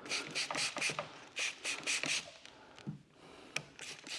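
Short crackling, hissing bursts in clusters from working paint protection film on a truck's fender, as the film is pulled back from the paint before tack solution goes under it.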